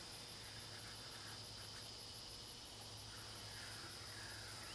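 Insects buzzing steadily: a continuous high whine with a faster, higher pulsing chirp over it.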